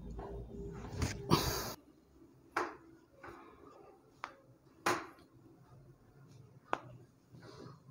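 A loud rustle and thump about one and a half seconds in, then four sharp clicks and knocks spaced a second or two apart: handling noises from a patient being positioned and adjusted on a chiropractic treatment table.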